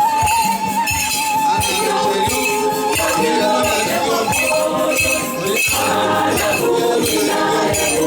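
Church choir singing, with drum beats and jingling percussion. A high voice holds a wavering note for about the first two seconds.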